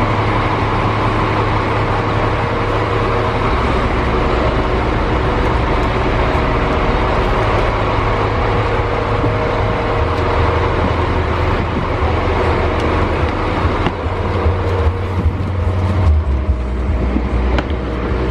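Diesel engine of a double-decker coach idling while parked, heard from inside the cabin as a steady low hum that shifts slightly a few times.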